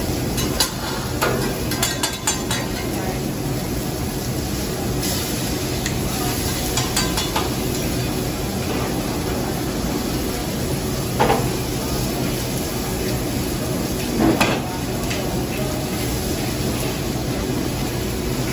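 Steak, chicken and mushrooms sizzling on a hibachi steel flat-top griddle, with a metal spatula clicking and scraping on the steel in the first few seconds, over a steady low hum.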